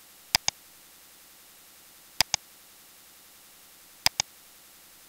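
Computer mouse buttons clicking: three quick pairs of sharp clicks about two seconds apart, over a faint hiss.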